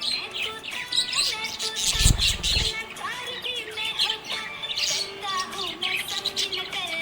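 Budgerigar chirping and warbling: a steady stream of quick, bright chirps and wavering twitters. A brief low thump comes about two seconds in.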